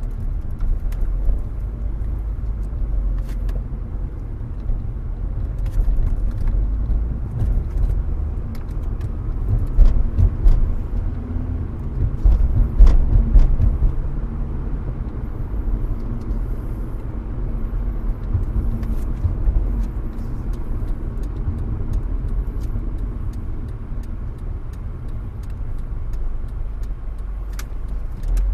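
Road and engine noise of a moving car, heard from inside the cabin: a steady low rumble with two louder surges around the middle and scattered small clicks and rattles.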